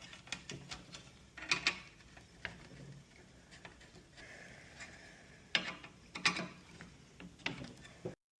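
Irregular clicks and taps of a hand tool tightening and adjusting the screws and nut that hold a replacement radio to its metal fascia bracket, with light handling of the plastic and metal parts between them.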